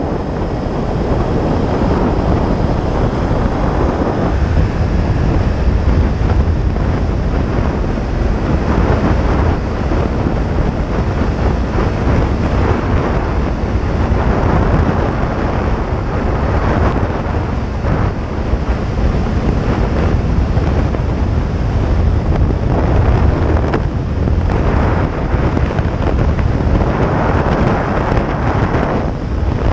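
Wind buffeting the microphone of a sport motorcycle riding at highway speed, a steady rumbling rush that surges a little, with the bike's engine and road noise blended underneath.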